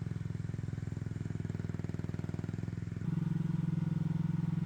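AGT LH12R mini excavator's small engine running steadily as the machine tracks along; about three seconds in it gets louder and its tone shifts slightly.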